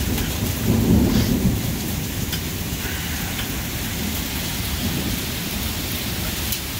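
Heavy rain pouring, with hailstones ticking, and thunder rumbling low. The rumble is strongest in about the first second and a half, then eases to a quieter roll under the steady rain.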